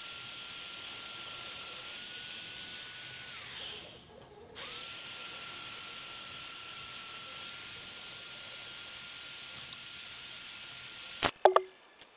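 Magnetic drill's electric motor running with a steady high whine while a twist drill bores through a steel plate. About three and a half seconds in the whine glides down as the motor winds down and stops, it starts again about half a second later, and it cuts off shortly before the end.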